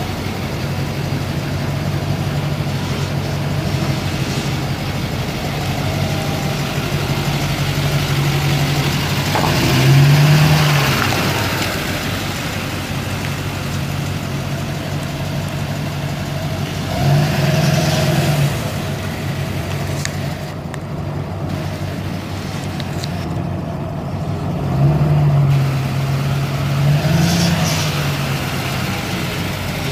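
2009 Chevrolet Silverado 3500's 6.6-litre V8 turbo-diesel engine idling steadily, its throttle blipped briefly four times in short revs.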